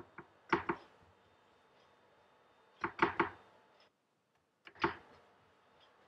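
A few sharp knocks and taps of hands on a wooden chopping board while shaping minced beef: two about half a second in, three close together around three seconds, and one more just before five seconds.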